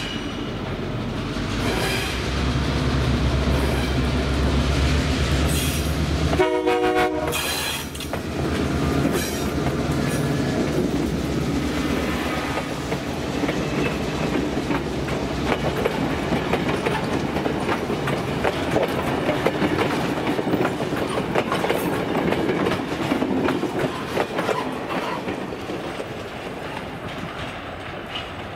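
An EMD GP38 diesel locomotive's engine drones as it approaches and passes, with one short horn blast about six seconds in. Then the passenger coaches roll by, their wheels clicking over the rail joints in a steady rumble that fades slightly near the end.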